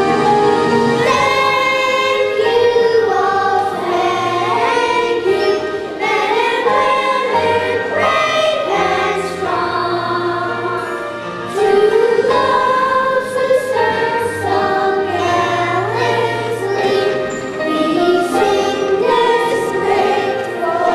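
A children's choir singing in unison over an instrumental accompaniment, with steady low bass notes under the voices.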